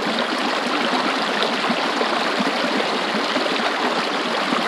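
Shallow, steaming hot-spring creek running over rocks right by the microphone: a steady rushing of water.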